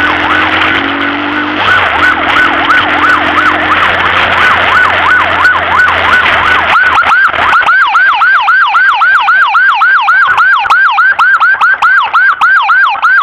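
Emergency-vehicle siren in a fast yelp, its pitch sweeping up and down about five times a second. Road and wind noise runs under it at first, then falls away about seven seconds in, leaving the siren clearer.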